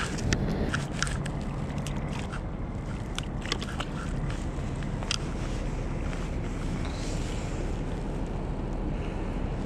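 Steady low rumble, with a scatter of small clicks and knocks in the first five seconds.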